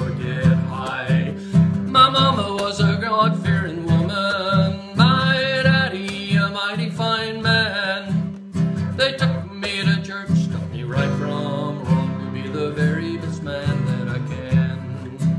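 Acoustic guitar strummed steadily, with a man singing over it for most of the time and breaking off briefly in the middle.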